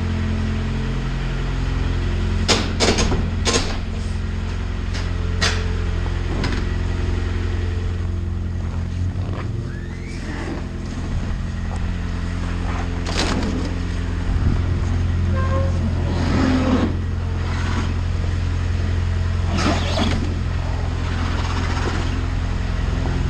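Lada Priora's four-cylinder petrol engine idling steadily just after a cold start, with a few irregular clicks and knocks over it. Right afterwards the owner picks out a tick from the hydraulic lifters, which he expects to go once the oil has reached them.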